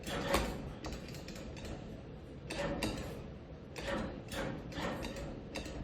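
Claw machine mechanism working, with clicking, ratcheting sounds and several short clatters spread through.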